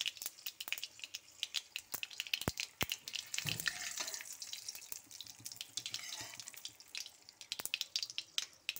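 Hot cooking oil sizzling and crackling in a pan on a gas stove, with a few sharper clicks near the middle.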